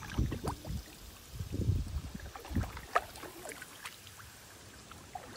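Water sloshing and dripping around a canoe being paddled, in uneven swells, with a sharp light knock about three seconds in.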